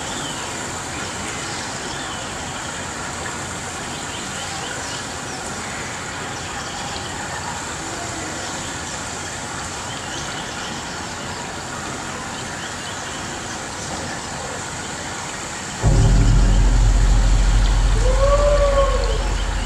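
Steady hubbub of a live audience in a large hall, then about sixteen seconds in, loud bass-heavy show music starts abruptly, with a sliding pitched sound near the end.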